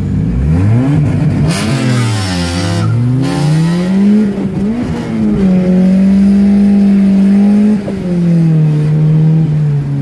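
Turbocharged car engine accelerating hard from a standstill, heard from inside the cabin: the engine note climbs and drops back at each gear change, with a burst of hiss at the first shift, then holds steady before easing off near the end.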